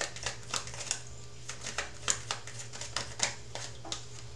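A deck of tarot cards being shuffled by hand: a quick run of short papery snaps, about three a second.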